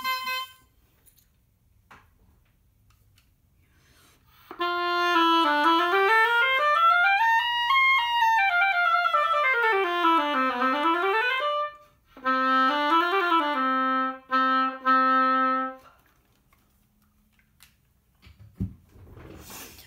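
Oboe played to test a freshly adjusted reed. After a short high note right at the start, it runs smoothly up over about an octave and a half and back down, then plays repeated tongued notes near the bottom of its range. The player judges that the reed responds right away in the low register but is a little unstable up high.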